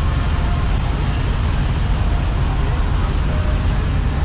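Several large decorated trucks' diesel engines idling together in a steady low rumble, with people talking in the background.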